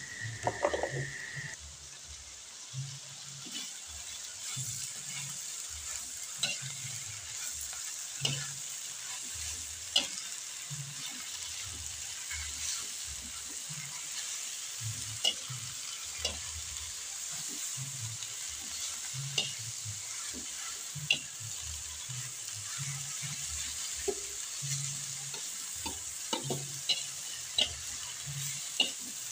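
Sawi (mustard greens) and tempe sizzling in a pan as they are stirred: a steady frying hiss with scattered clicks from the stirring.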